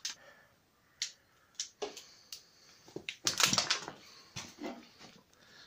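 Footsteps crunching on loose stones and rubble: a scatter of irregular crunches and clicks, the loudest cluster about three and a half seconds in.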